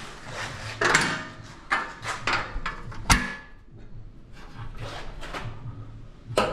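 A run of clicks, knocks and clatter from hands-on handling, with one hard knock about three seconds in and another near the end, over a faint low hum.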